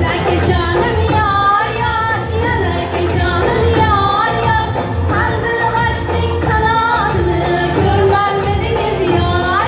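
A woman singing an Uzbek-style pop song live into a microphone over amplified backing music with a steady beat, her melody bending and wavering.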